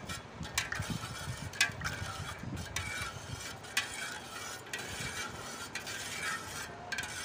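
A metal spoon stirring a large aluminium pot of cold milk with ice chunks, scraping and clinking against the pot in quick, irregular strokes.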